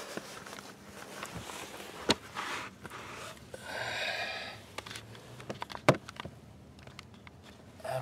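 Handling noise in a car interior: scattered light clicks and knocks, with a brief rustle about four seconds in.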